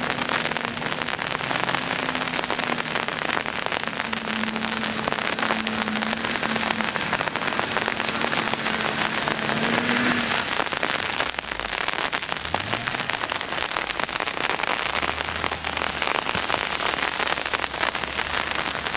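Freezing rain and sleet falling, a steady hiss over everything. Underneath, the Acura MDX's V6 engine runs as a low steady hum for the first half, then revs up and back down about two-thirds of the way through as the SUV spins on the snow.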